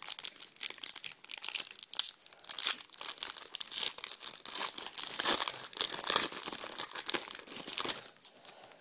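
Foil trading-card sachet being torn open and crinkled by hand, a dense run of sharp crackles that dies down about eight seconds in.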